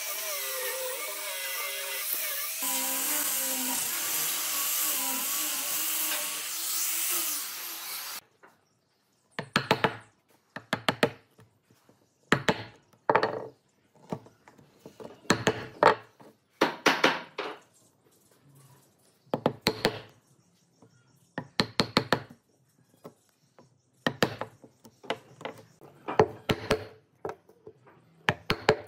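Angle grinder with a sanding disc running against a pine tabletop, cutting off suddenly about eight seconds in. Then a steel chisel is driven into the wood in groups of sharp knocks, several quick strikes at a time with short pauses between.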